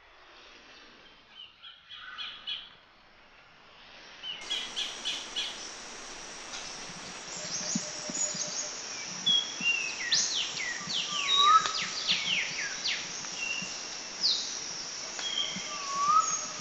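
Several birds chirping and whistling, with many quick downward-sweeping whistles and short rising notes. It is faint at first and grows fuller and busier about four seconds in.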